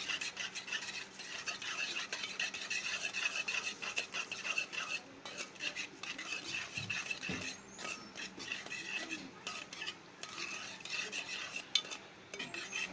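A bowl of yogurt being whisked by hand, with the utensil scraping and clinking against the bowl in quick, irregular strokes and a few brief pauses.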